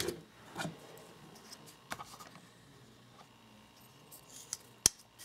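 Faint handling noise and a few small clicks as a pocket knife is turned over in the hands, with one sharp click near the end.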